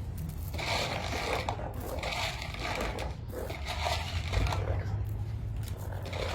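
Irregular crunching and scraping noises over a steady low rumble.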